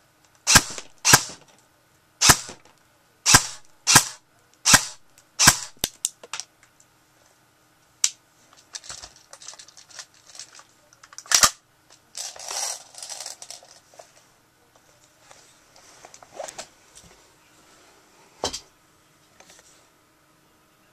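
Airsoft gun firing: a quick string of about seven sharp shots over the first six seconds, then a few single shots spaced several seconds apart, with softer noises between the later ones.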